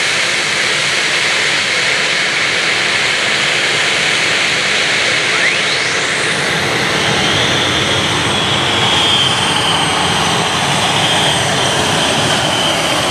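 Modified pulling tractor's engines running loud and steady. About halfway through, a whine rises sharply in pitch and then holds as a steady high whine.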